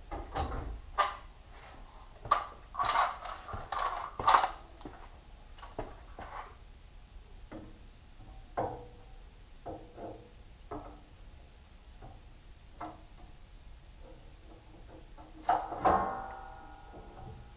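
Scattered clicks, knocks and rattles of hand tools and parts being handled on a bandsaw's cast-iron table, busiest in the first few seconds, with a louder knock and brief metallic ring about sixteen seconds in.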